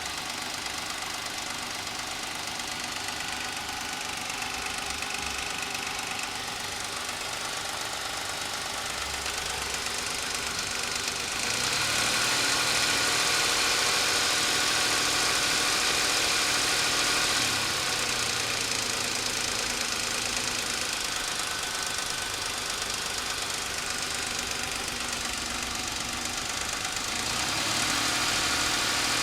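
Suzuki Escudo's H25A 2.5-litre V6 running with a knock whose cause the owner cannot find. It idles, rises in pitch and loudness for several seconds about a third of the way in, settles back, and rises again near the end.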